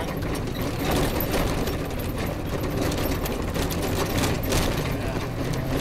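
Off-road rally car driven hard over a rough grass track, heard from inside: the engine running under load beneath a dense, rapid rattling and knocking of bodywork and suspension over the bumps. Near the end the engine note starts to rise as it revs up.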